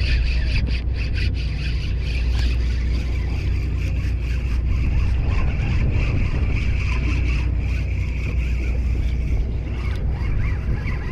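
Steady low rumble with a hiss above it aboard a small boat on open sea.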